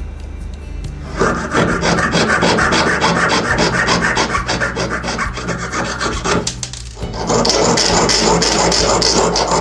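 Hand file rasping on silver in quick back-and-forth strokes. It comes in two runs with a short pause about six and a half seconds in, and the second run is louder and brighter.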